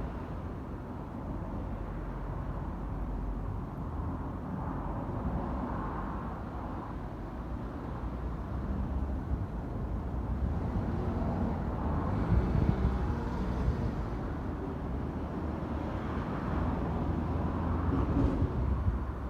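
Steady low rumble of vehicle noise, swelling slightly about twelve seconds in and again near the end.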